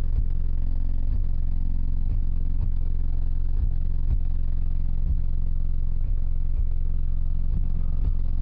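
Deep bass music played loud through six Sundown ZV5 15-inch subwoofers, heard from inside the truck's cab: a steady low drone with a regular beat.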